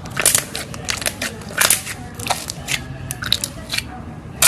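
Crunchy material being crushed: dense, irregular sharp cracks and pops, with a few louder snaps among them.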